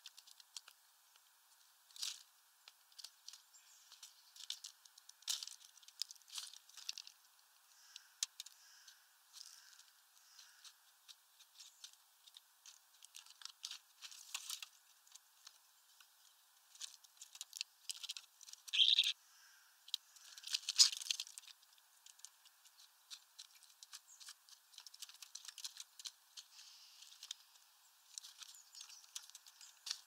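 Common starlings pecking at sunflower seeds in a feeder tray: irregular sharp taps and clicks of beaks and claws with the rattle of seeds and husks. The loudest bursts of tapping come a little past halfway.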